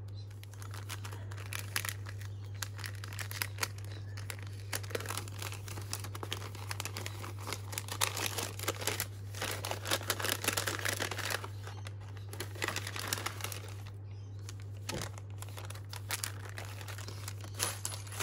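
Paper bags rustling and crinkling as they are handled and opened, in irregular bursts of crackle that are thickest about halfway through.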